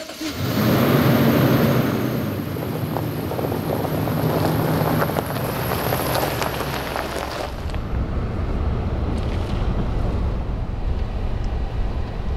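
Lexus GX460 SUV with its V8 engine running as it drives off, engine and road noise at a steady level. About seven seconds in the sound changes to a deeper, steadier road rumble.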